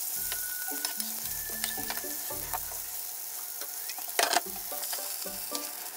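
Beef steak sizzling as it sears in hot oil in a frying pan, with a metal turner scraping and pressing in the pan near the start. A brief louder burst of noise comes about four seconds in.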